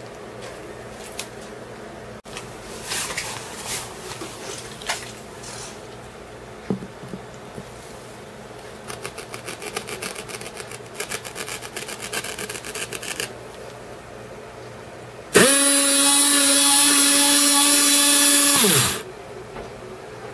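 Small power drill's motor whining steadily at one pitch for about three and a half seconds near the end, then stopping. Before it come scattered tool-handling clicks and a fast run of rapid clicking.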